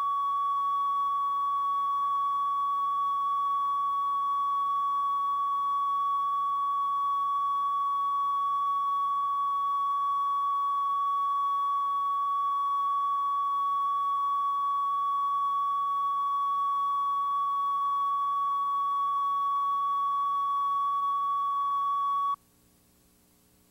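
Steady single-pitch test tone from the end of a VHS tape's mono linear audio track, over a faint tape hiss. It cuts off suddenly near the end, leaving near silence.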